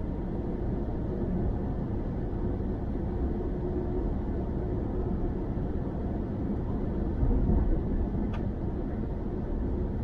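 Steady low road and tyre rumble of a car cruising at motorway speed, heard from inside the car. About seven seconds in the rumble briefly swells louder, and a faint tick follows just after.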